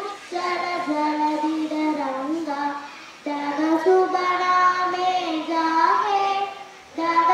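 Children singing a slow melody in long held notes, in phrases of about three seconds with short breaks between them.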